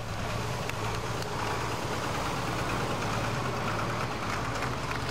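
Pulling tractor's engine running steadily at low revs as the tractor drives slowly along the track.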